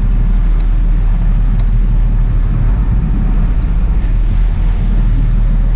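Sport-fishing boat's engines running steadily, a loud, even low rumble.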